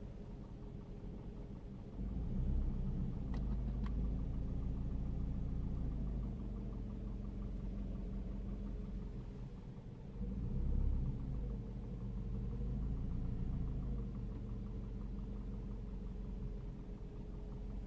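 Seat Leon's engine running at idle, with the engine speed rising and falling twice, about two seconds in and about ten seconds in. Among the engine sound is the strange noise the owner hears from behind the dashboard, its cause unknown.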